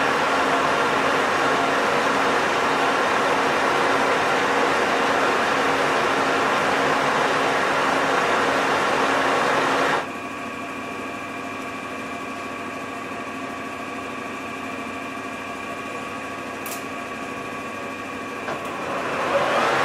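Colchester gear-head lathe running with the chuck spinning, then stopping abruptly about ten seconds in, leaving a quieter steady hum; near the end the lathe spins back up with a rising sound.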